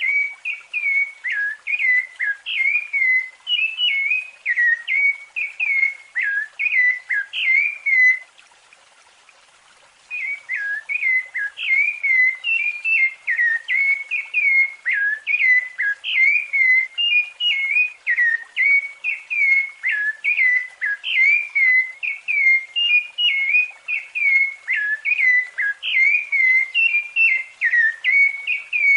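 Rufous-bellied thrush (sabiá-laranjeira) singing its fluted song: a fast, continuous run of clear whistled notes. The song breaks off for about two seconds partway through, then carries on.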